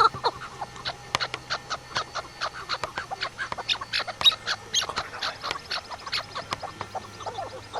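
Waterfowl calling: a rapid, continuous run of short, repeated calls.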